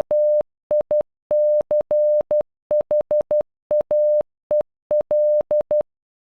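A steady single-pitch electronic Morse code tone beeping out the name MICHAEL (-- .. -.-. .... .- . .-..). It is keyed in short dots and longer dashes with brief gaps between the letters, and stops near the end.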